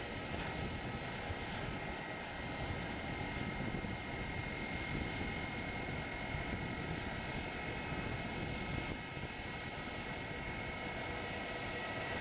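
Airbus A320-family airliner's jet engines running at low taxi power as the aircraft rolls slowly along the runway: a steady whine with two constant high tones over low rumbling noise.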